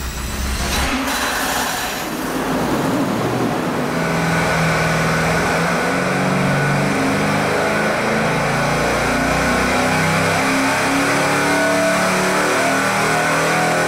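Carbureted 350 cubic-inch small-block Chevy V8 running loud on an engine dyno during a power pull, its revs climbing under load.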